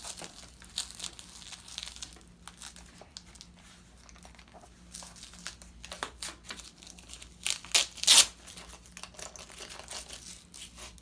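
Hook-and-loop (Velcro) straps on a Boston back brace being pulled, adjusted and pressed down, giving short rasping rips scattered through, the loudest a few about eight seconds in.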